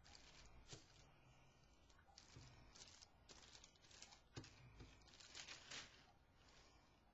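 Tissue paper being crinkled, torn and pressed down by hand, a quick string of soft papery rustles, as it is worked into bark texture on a paper tole tree.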